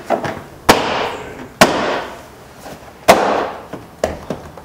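Hand blows on a Toyota Sequoia's plastic front-door trim panel, knocking its retaining pins home into the door. There are three loud, sharp bangs, each with a short ringing decay: under a second in, at about a second and a half, and at about three seconds. Lighter knocks and clicks fall between them.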